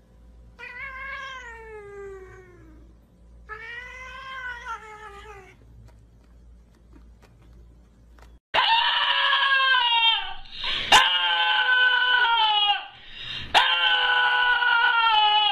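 A cat gives two long meows that fall in pitch. A small long-haired dog then howls loudly in long wavering howls, with two sharp clicks among them.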